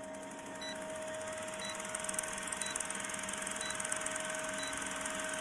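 Old-film countdown leader sound effect: a steady hiss and fast mechanical clatter over a low hum, growing slightly louder, with a short high beep once a second marking each count.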